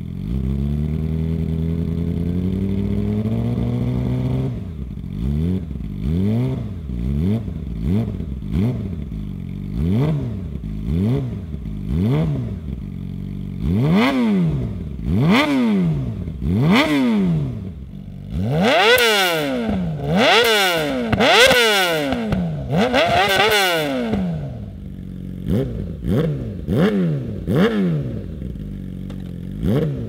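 A 2019 Yamaha YZF-R6's inline-four, breathing through a Yoshimura Alpha-T full titanium exhaust system, starts up and holds a raised idle for about four seconds, then is blipped over and over on the stand. Each blip rises and falls in pitch about once a second, and the revs go higher and louder around the middle.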